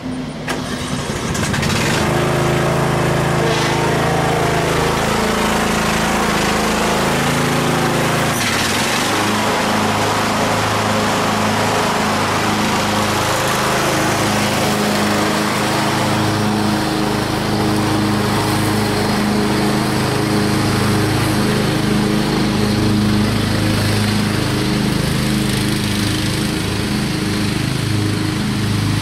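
Craftsman DYT4000 riding lawn tractor's Briggs & Stratton Intek engine running steadily as the tractor drives past and away across the lawn; its note changes about eight seconds in.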